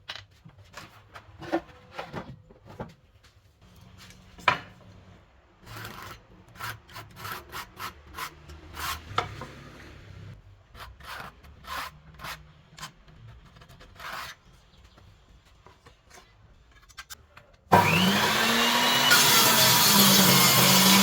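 Wood being worked by hand in short, irregular rubbing and sawing strokes. About three-quarters of the way through, an electric power tool switches on, its motor spinning up and then running loud and steady.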